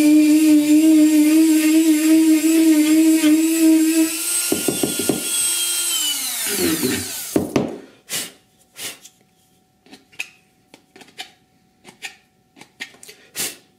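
Handheld Dremel rotary tool drilling a pin hole into a resin model part, its motor running with a steady high whine. About six seconds in the motor winds down with a falling pitch. Then come light scattered clicks and taps of the resin pieces being handled.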